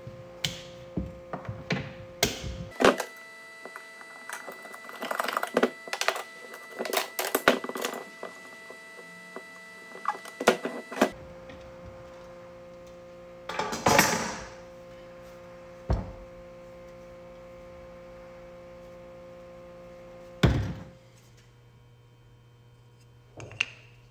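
Handling noises of wood and tools: many sharp knocks, clicks and thunks in quick succession in the first half, then a short rushing sound and a few single knocks, over a steady hum.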